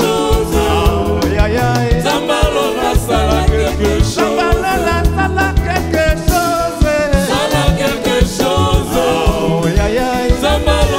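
A live band playing with several voices singing, over a bass line and a steady beat on drum kit.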